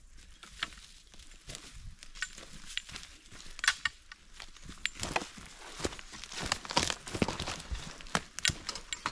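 Hikers' boots crunching and crackling on dry leaves, twigs and loose dirt as they step down a steep bush slope. The steps grow louder and closer from about five seconds in.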